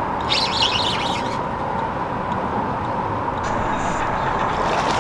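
Steady outdoor noise like distant road traffic, with a brief high rasp about half a second in.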